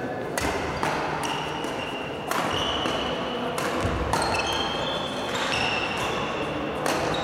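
Badminton rackets striking the shuttlecock in a fast rally, about seven sharp smacks with echo from the hall. Several hits are followed by a brief high ringing tone.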